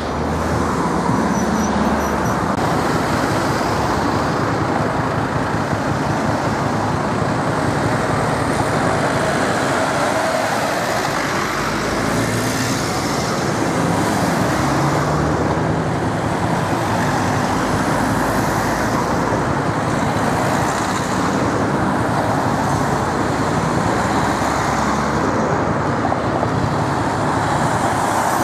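Steady city street traffic noise: cars and vans running and moving past in slow, dense traffic.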